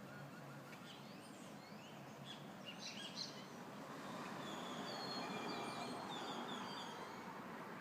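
Several birds chirping in short quick calls over a steady outdoor hiss, which swells for a few seconds from about halfway through. A few held high whistle-like notes sound in the middle.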